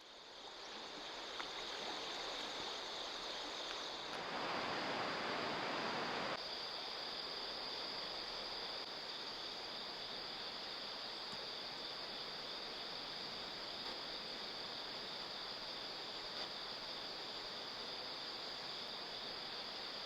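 A river flowing steadily, louder for a couple of seconds about four seconds in, with a steady high-pitched ringing over the water.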